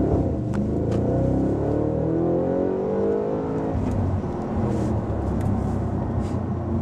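Audi RS5's 4.2-litre V8 with sport exhaust accelerating hard, its note climbing steadily through the revs. It drops back at an upshift about four seconds in and pulls on at lower revs.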